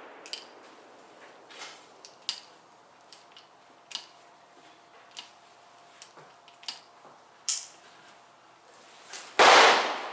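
A single loud shot from a .44 Special Bisley revolver about nine seconds in, firing a 262-grain round-nose load. Before it, the previous shot's report fades out, and faint scattered clicks and pops follow.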